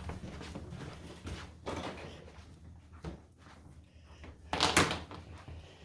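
A few scattered knocks and thumps, the loudest a sharp pair about four and a half seconds in.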